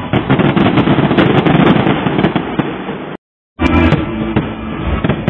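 Fireworks display going off in quick succession, a dense crackle of bursts and bangs. The sound cuts out completely for a moment a little past three seconds in, then carries on.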